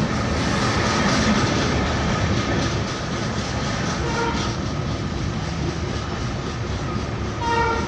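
A train running over an old iron railway bridge: a steady rumble and rattle of wheels on the track. A short horn blast sounds near the end, with a fainter beep about halfway through.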